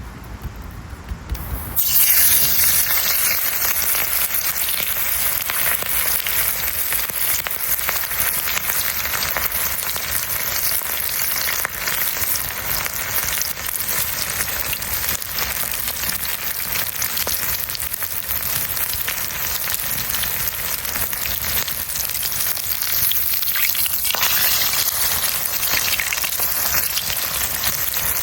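Chicken frying in hot oil: a steady, dense sizzle that starts abruptly about two seconds in.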